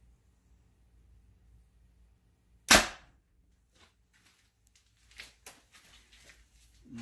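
Hoyt Helix Ultra compound bow shot at 69.5 pounds: one sharp, loud crack of the string releasing about two and a half seconds in, as a heavy 550-grain arrow is shot through a paper-tuning sheet to check its flight. Faint knocks and rustling follow.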